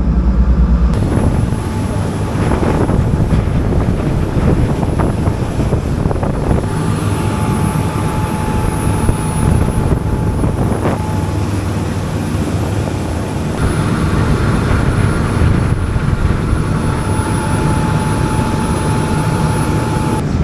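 Rescue boat's engine running steadily under way, a continuous low drone.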